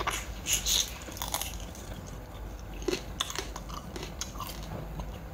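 A person eating spicy crab salad close to the microphone: chewing, with several short crunchy bites and mouth clicks at irregular moments.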